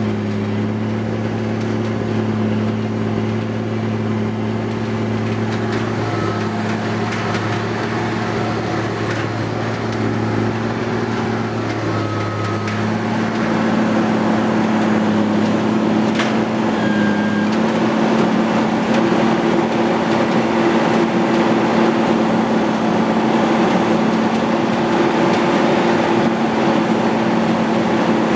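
Timberjack 450C skidder's diesel engine running steadily as the machine travels, heard from inside its cab. About halfway through its note shifts and it grows a little louder.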